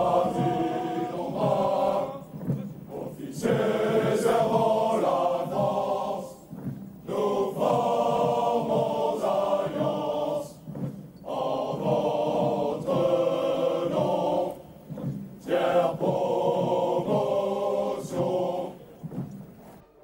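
A marching column of French military cadets singing a marching song in unison: many men's voices chanting phrases of a few seconds each, with short breaks between them.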